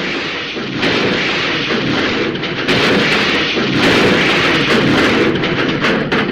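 Metal junk crash sound effect: a long, loud clattering crash of metal pieces tumbling and banging together, swelling louder twice and cutting off suddenly at the end.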